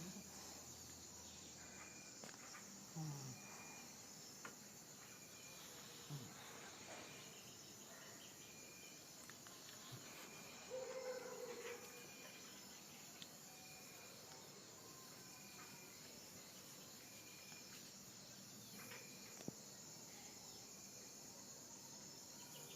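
A sleeping five-month-old pit bull puppy gives three short, low snores a few seconds apart near the start, then a brief higher-pitched sound about eleven seconds in. Behind it runs a faint, steady high chirring with a short chirp repeating about every second and a half.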